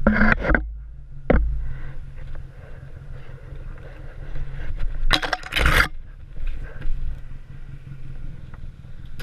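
Vehicle engine running at a steady idle, with several loud scraping bursts over it, the longest and loudest about five seconds in.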